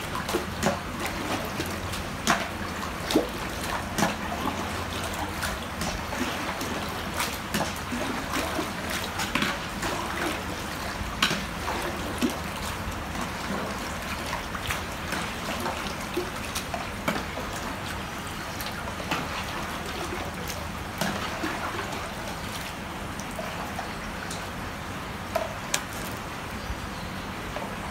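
Water running into a fish-hatchery tank through a PVC pipe tap: a steady wash of trickling water with many small splashes and drips, and a low steady hum underneath.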